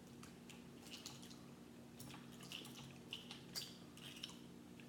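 Faint eating sounds of crab legs being picked at with a fork and chewed: scattered small clicks and wet smacks, over a steady low hum.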